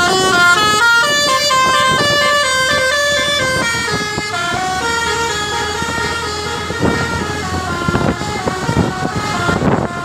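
Indonesian bus's multi-tone 'telolet' horn (Basuri type) playing a quick melody: several horn tones sound together and step from note to note. It is loudest at first and grows fainter and noisier over the last few seconds.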